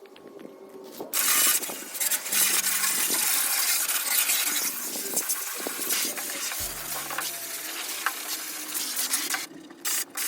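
Water spraying hard onto a stripped car door shell, washing off degreaser: a loud, steady hiss that starts about a second in and breaks off near the end.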